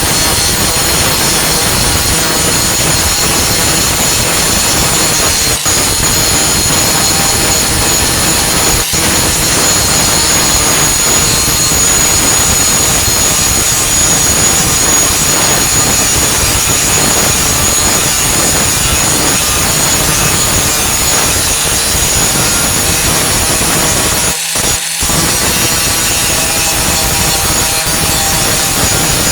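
Warrior 4-1/2 in. angle grinder with a Type 27 grinding disc grinding down flux-core welds on a steel tailgate patch, a loud steady grind with a high motor whine. It breaks off twice, briefly, near the end.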